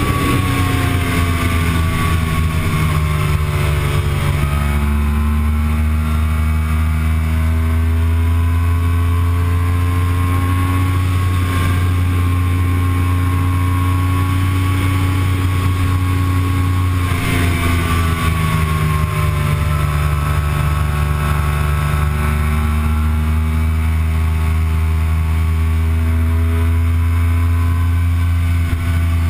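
Yamaha R1 inline-four sportbike engine running hard at high revs in sixth gear at around 240 to 280 km/h, under a heavy low wind rumble. The engine pitch sags over the first few seconds and again about two-thirds of the way through, then climbs back each time.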